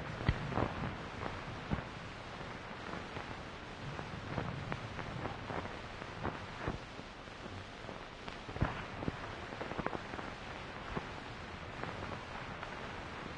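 Steady hiss of an old 1940s film soundtrack, with scattered faint crackles and small clicks at irregular moments.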